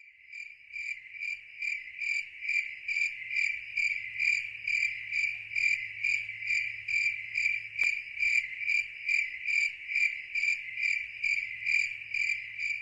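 Cricket chirping steadily: a high, even-pitched chirp repeating about two and a half times a second, over a faint low hum.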